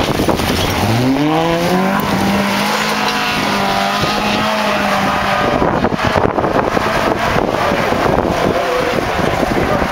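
Volvo 240-series rally car accelerating out of a gravel hairpin. The engine revs climb about a second in, then hold steady for a few seconds before the engine tone drops away as the car leaves, over a constant rushing noise.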